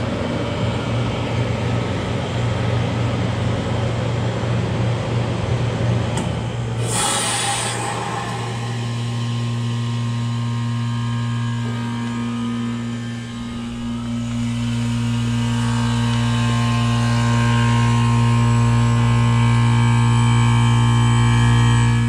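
1993 Comfort-Aire 18,000 BTU window heat pump running, a low compressor hum under a rush of airflow. About seven seconds in comes a short loud hiss of refrigerant as the unit shifts into defrost. The airflow noise then drops away, leaving a steady low compressor hum that grows a little louder near the end.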